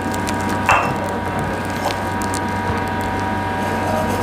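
Brush scrubbing the bare solder pads of a phone motherboard wet with thinner, a scratchy scrubbing with scattered small clicks and a sharper scrape about a second in. A steady hum runs underneath.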